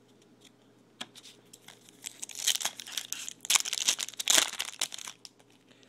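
Foil wrapper of a trading-card pack being torn open and crinkled in the hand, a run of loud crackles from about two seconds in, dying away near the end.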